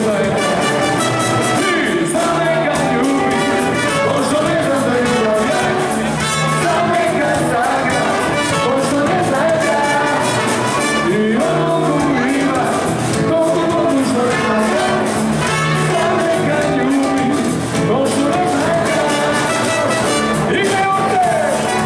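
Live band playing: trumpets and a saxophone carry the melody over electric and acoustic guitars, with a drum kit keeping a steady beat.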